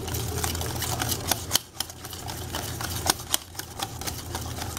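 Utensil stirring pancake batter in a bowl: irregular clicks and taps against the bowl, over a steady low hum.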